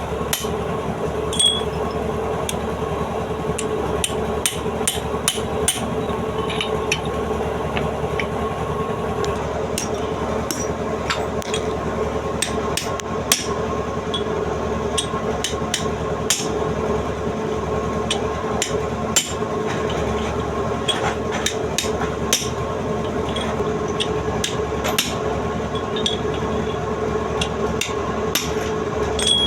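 Repeated hammer blows at an irregular pace, several sharp strikes with short pauses between, over a steady mechanical hum.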